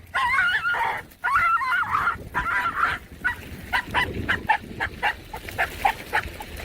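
An animal calling: wavering, whining calls for about the first two seconds, then a quick run of short, clipped calls, about four or five a second, for some three seconds.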